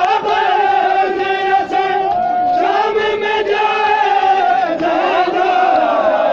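Men's voices chanting a Muharram mourning lament, long held lines that slide up and down in pitch, with the noise of a large crowd around them.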